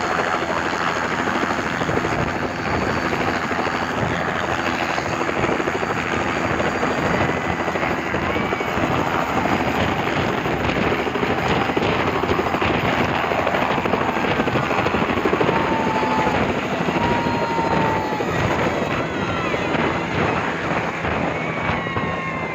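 Bell 206-type light turbine helicopter at full rotor speed, lifting off and climbing away: a steady turbine whine under the fast, continuous chop of the main rotor.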